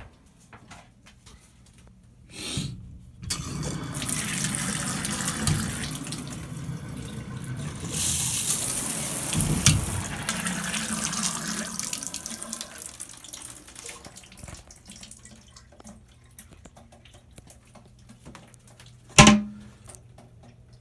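Hotel bathtub faucet turned on: water gushes from the spout into the tub, louder about eight seconds in, then is shut off and tapers away. A single sharp thump near the end.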